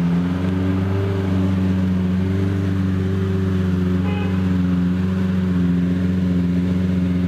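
Lamborghini Murciélago LP670-4 SuperVeloce's 6.5-litre V12 idling with a steady, even note.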